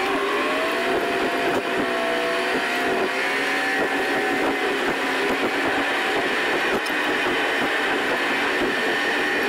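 Car engine and road noise heard from inside the cabin while driving: a steady drone whose engine note shifts slightly in pitch.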